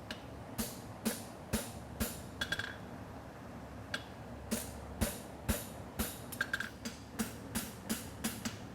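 Hand hammer striking a steel concave horseshoe on an anvil while shaping it, a steady run of sharp blows about twice a second that come quicker in the second half. A steady hum of a cooling fan runs underneath.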